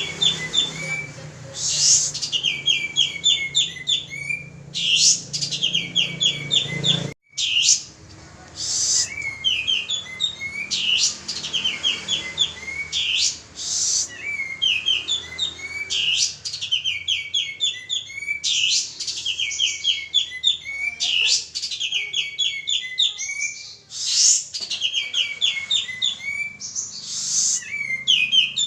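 Male kapas tembak singing vigorously: phrases of rapid, high chattering notes repeated every couple of seconds with short pauses between them. It is the kind of recording played as a lure call to set other kapas tembak singing. There is a brief cut-out about seven seconds in.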